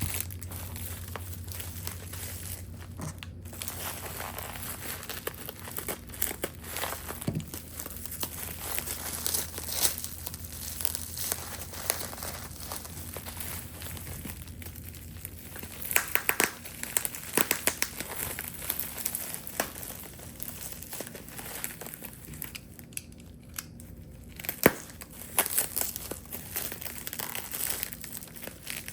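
Packing material crinkling and crumpling by hand as crystals are unwrapped, in irregular rustles with a few sharp clicks.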